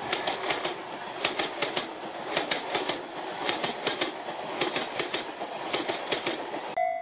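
Train passing, its wheels clacking in repeated groups over rail joints above a steady rushing noise. It cuts off suddenly shortly before the end, when music tones come back in.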